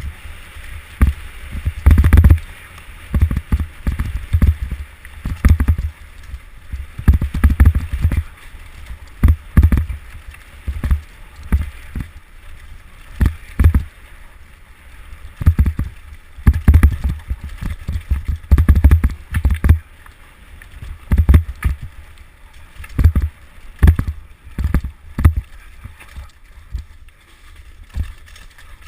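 Mountain bike descending a rough downhill race course: irregular heavy low thumps and buffeting on the microphone, several every few seconds, with sharp rattling clicks as the bike hits bumps.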